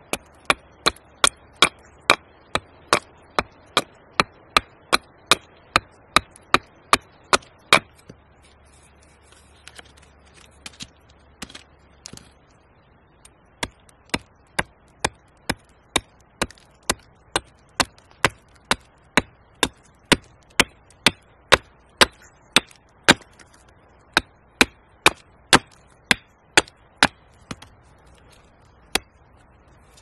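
Hatchet hewing a split wooden blank held upright on a log, roughing out a spatula. Quick, regular chops about three a second, a break of a few seconds after about eight seconds, then steady chopping again, ending with two spaced strokes.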